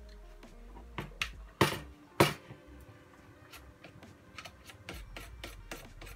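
Fishing rod and spinning reel being handled on a wooden table: a few sharp knocks and clicks in the first couple of seconds, the loudest just over two seconds in, then a run of lighter ticks.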